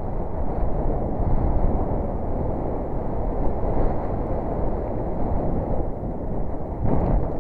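Steady wind rush buffeting the microphone of a bike-mounted camera at riding speed, with tyres rolling on loose gravel. A brief louder rush comes just before the end.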